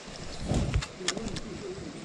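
A pigeon cooing: a low, wavering call in the second half. A low muffled thump about half a second in is the loudest sound.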